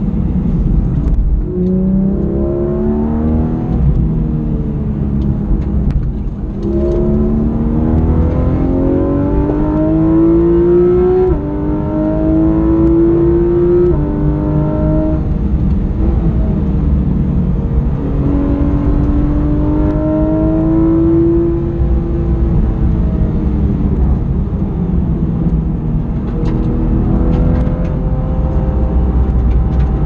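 Porsche 911 GT3 RS's naturally aspirated 4.0-litre flat-six under hard acceleration on track, heard from inside the cabin. Its pitch climbs steadily and then drops sharply at each upshift of the PDK gearbox, several times, and eases off between the pulls.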